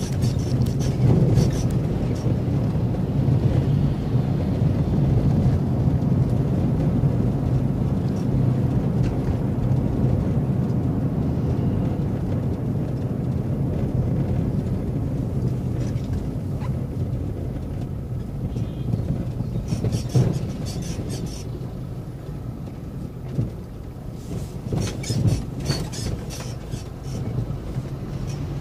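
Steady low drone of a vehicle's engine and road noise heard from inside the cabin while driving, with bursts of sharp clicks and rattles about twenty seconds in and again a few seconds before the end.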